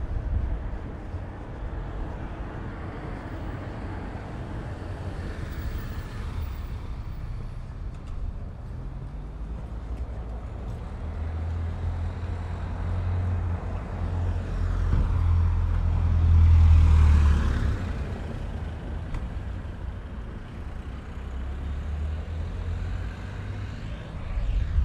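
Street traffic with wind rumbling on the microphone; a vehicle passes close by, swelling to its loudest about two-thirds of the way through and then fading.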